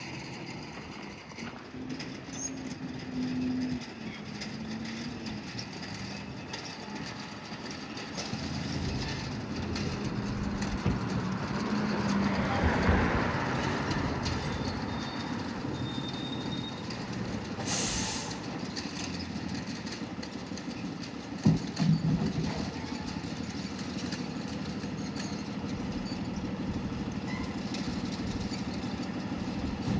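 Diesel fire apparatus, a fire engine and a rescue truck, driving past with a steady engine rumble that swells to its loudest about thirteen seconds in. A short hiss comes near eighteen seconds and two sharp knocks a few seconds later. No siren is sounding.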